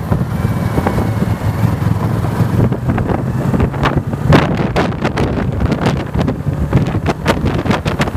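Motorcycle engine running under acceleration, a steady low drone, with wind buffeting the handlebar-mounted camera's microphone in repeated short gusts.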